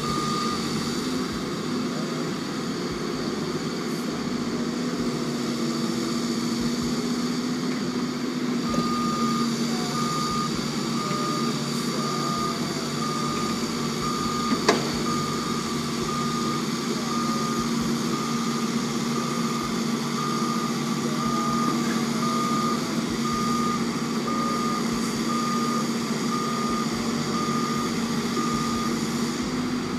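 Heavy machine's engine running steadily while a reversing alarm beeps about once a second. The beeping stops shortly after the start and resumes about nine seconds in. A single sharp knock about halfway through.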